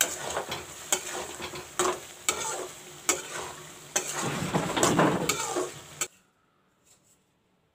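Flat metal spatula stirring macaroni in a metal kadai over a sizzle, with repeated scrapes and clicks against the pan about every half second to second. It cuts off suddenly about six seconds in.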